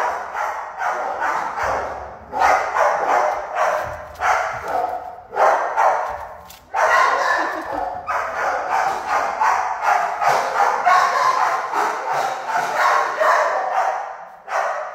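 Several dogs barking continuously in shelter kennels, the barks overlapping, with a brief lull a little past the middle.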